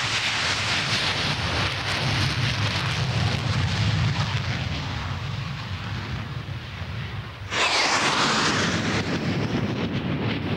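Hawker Hunter jets' Rolls-Royce Avon turbojets running at high power, a steady jet roar. About seven and a half seconds in it cuts abruptly to a louder jet roar with a whine falling in pitch as the formation flies past.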